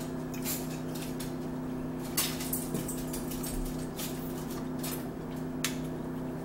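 Eating at the table: scattered sharp clicks and smacks of chewing, utensils and a straw in an iced drink, one every second or two, over a steady low hum.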